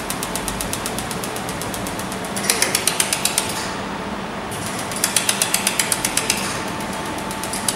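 Pulsed laser welder firing, a rapid even ticking of about eight to ten pulses a second, each tick one laser pulse. The ticks get louder for a second or so about a third of the way in and again past the middle, over a steady machine hum.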